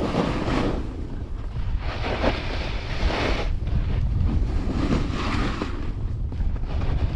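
Wind buffeting the microphone of a snowboarder riding down a groomed slope, with the snowboard's edge scraping over the snow in swells of hiss as it turns, three times.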